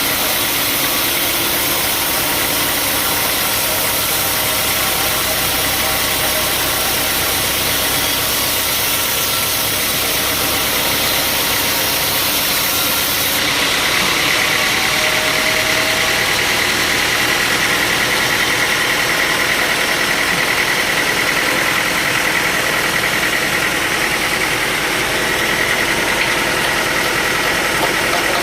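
Sawmill machinery running steadily, an engine-driven machine with a continuous mechanical din; about halfway through the sound changes abruptly and a steady high whine comes in.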